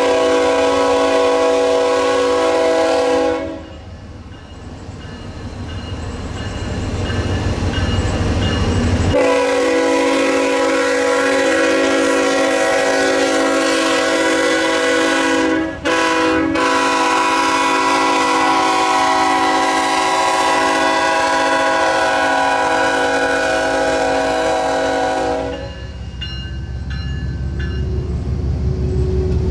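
Locomotive air horn sounding a chord of several notes: a blast of about three seconds, then after a pause a long blast of about sixteen seconds broken once by a short gap. Under it the low rumble of the passing train grows louder between the blasts and carries on after the horn stops near the end.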